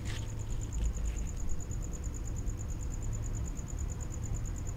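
A few faint clicks and rattles as clips and connectors are worked by hand on top of a car's gearbox, over a steady low hum and a rapid, even high-pitched chirping.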